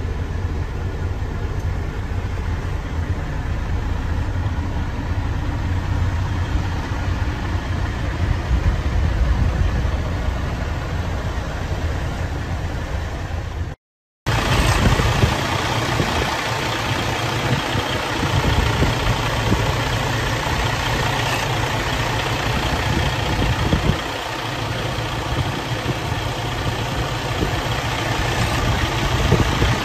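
Detroit DD15 six-cylinder diesel engine of a Freightliner SD122 dump truck idling steadily. It is heard first from the cab, then, after a brief dropout about halfway through, from the open engine compartment, where it sounds brighter and closer.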